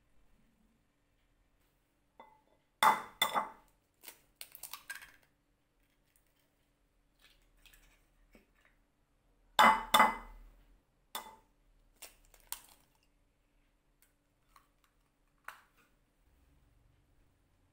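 Eggs knocked against a white ceramic bowl and cracked into it: two loud clusters of sharp taps, about three seconds in and about ten seconds in, with lighter clinks and taps of shell and bowl between.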